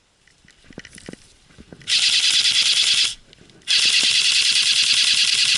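Airsoft electric gun firing two full-auto bursts, the first about a second long and the second about two seconds, each a rapid even rattle of shots.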